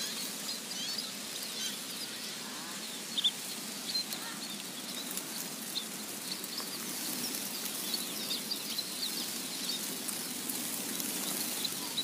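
Small birds chirping: many short, scattered high chirps over a steady hiss.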